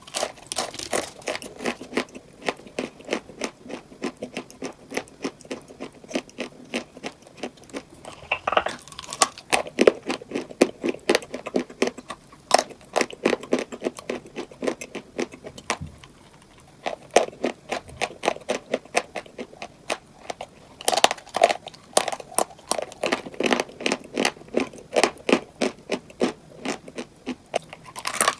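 Rapid crisp crunching and clicking of hard, crunchy sweets, several sharp cracks a second, with a short pause about halfway through.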